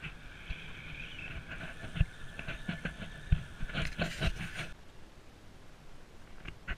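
Recumbent cycle rolling along a paved trail: a steady whir from the tyres and drivetrain, with sharp knocks and rattles over bumps in the pavement. The whir stops about two thirds of the way through, leaving a quieter outdoor background.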